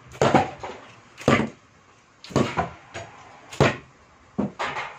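Homemade wooden repeating slingshot firing shot after shot: about five sharp snaps and thwacks roughly a second apart as the rubber bands are released one after another.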